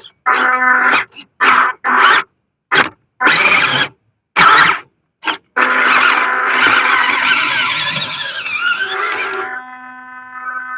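Electric whine and squeal of a WPL C24 RC truck's stock 180 brushed motor and plastic gearbox, in a string of short throttle bursts with dead gaps between them. A sustained run of about four seconds follows, then a fainter steady whine.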